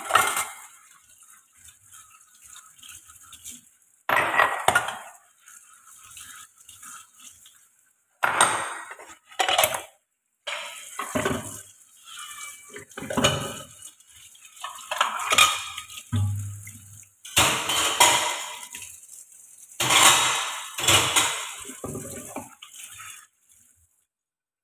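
Dishes, pots and pans clattering and clinking as they are washed by hand at a sink, in irregular bursts with short pauses between them.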